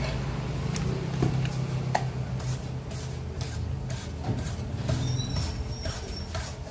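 Broad heavy knife slicing squid on a thick wooden chopping block: irregular sharp knocks of the blade striking the wood, over a steady low hum.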